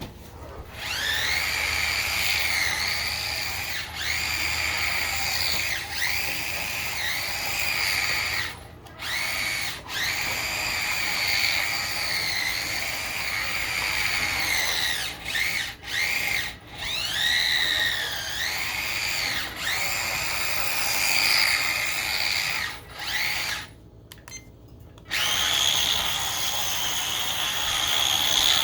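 Electric motor and gears of a 1/18 scale RC drift car whining under throttle in runs of a few seconds. The pitch rises at each start and the whine cuts out briefly between runs, then holds a steadier, higher pitch near the end.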